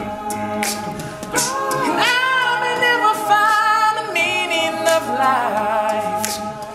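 All-male a cappella group singing wordless harmony, the backing voices holding chords under a lead voice that rises into a high, wavering held note about two seconds in.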